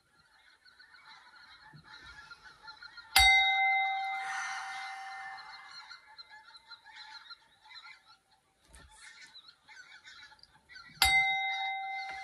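A small metal chime struck twice, about eight seconds apart (about three seconds in and near the end). Each strike gives a sharp attack and a ringing tone with several bell-like overtones that fades slowly over a few seconds. A soft knock comes shortly before the second strike.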